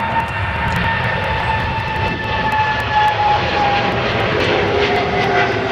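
Boeing 777-200ER jet engines at takeoff power: a loud, steady rumble with a whine that slowly falls in pitch.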